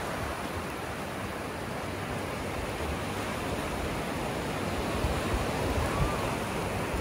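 Sea surf washing onto a beach, a steady rush of waves that swells a little in the last couple of seconds, with some low wind rumble on the microphone.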